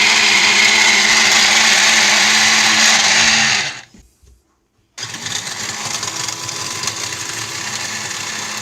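Electric kitchen chopper motor running at full speed, spinning down about three and a half seconds in, then starting again about a second later and running on slightly quieter. The freshly repaired chopper is working.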